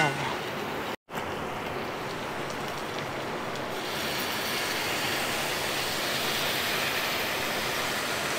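Chicken, masala and tomatoes frying in a black iron kadhai with a steady sizzle. From about four seconds in, a thin stream of water pours into the hot pan and the sizzle turns brighter and hissier. The sound cuts out briefly about a second in.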